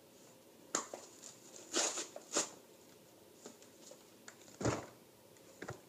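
Paper pages of a torn phonebook rustling and flapping as they are handled, in several short bursts.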